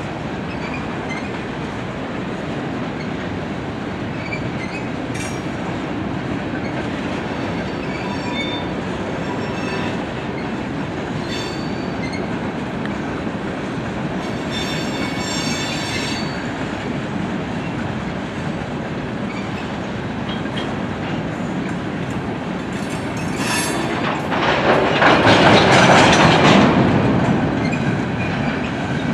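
Freight train of boxcars rolling past with a steady rumble of steel wheels on the rails. Brief high-pitched wheel squeals come several times. A louder surge of rolling noise swells and fades near the end.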